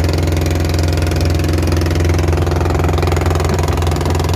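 Long-tail boat engine running steadily at a constant speed.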